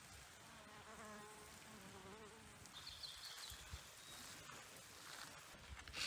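Faint buzzing of a flying insect, wavering in pitch as it passes, mostly in the first half; a brief high chirp about three seconds in.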